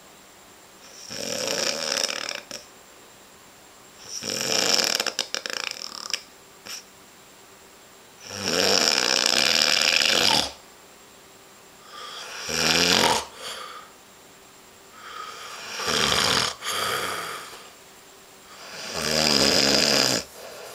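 Snoring: six snores, each one to two seconds long, in a steady rhythm of about one every three to four seconds, with near quiet in between.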